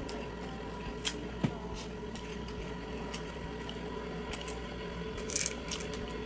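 Quiet eating sounds: a few soft clicks and taps, and a short crackly scrape about five seconds in, over a steady background hum.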